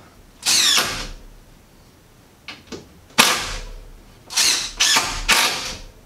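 Blue corrugated plastic electrical conduit (Smurf tube) being cut and fitted to a plastic electrical box: separate rasping, clattering strokes, one just after the start, a sharp loud one about three seconds in, and three quick ones near the end.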